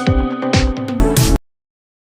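Electronic background music with a steady beat, about two beats a second, ending on a final chord and cutting off suddenly about one and a half seconds in.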